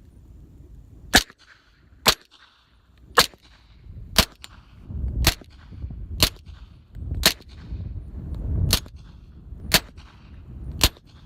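Ten suppressed pistol shots about a second apart from a Glock 21 in .45 ACP and a Glock 17 in 9mm, each fitted with a Rugged Obsidian suppressor in its short configuration and firing subsonic reloads. Each shot is a sharp crack with a short ringing tail.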